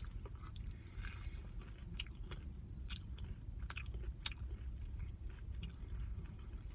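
Close-miked chewing and biting, with scattered short wet mouth clicks over a steady low background rumble.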